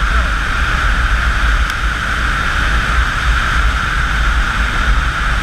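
Steady wind rush and road noise from a motorcycle at highway speed, with low wind buffeting on the microphone.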